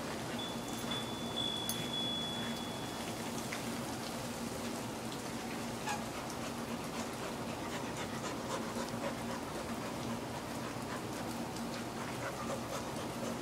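A dog panting, winded from rough wrestling play, with small irregular clicks and rustles over a low steady hum. A thin high tone sounds for about three seconds near the start.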